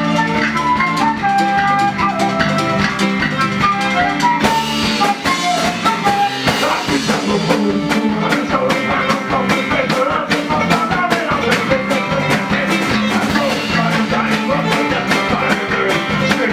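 Irish folk-punk band playing live: drum kit, electric bass and acoustic guitar under a flute carrying the melody for about the first six seconds, after which the band fills out and a sung vocal comes in.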